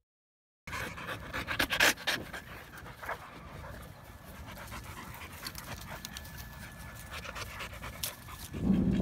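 Dogs panting close to the microphone, with a few sharp clicks and rustles in the first couple of seconds. Music comes in near the end.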